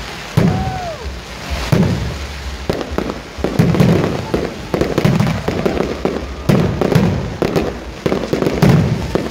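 Fireworks display: aerial shells going off in quick, irregular succession, about one or two deep booms a second, each with a crackling tail.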